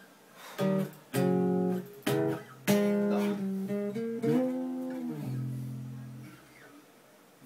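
Electric bass guitar played fingerstyle, its drive and tone controls set to zero: a few separate plucked notes, then a note that bends up and back down, then a low note left ringing and slowly dying away.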